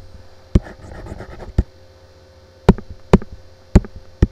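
About six sharp, unevenly spaced clicks of a computer mouse being clicked to draw and erase, with a faint scratchy rustle between the first few, over a steady electrical hum.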